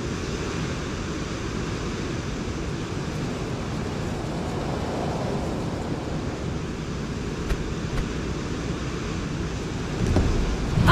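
Steady rushing of wind and sea water, heaviest in the low end, growing louder about a second before the end.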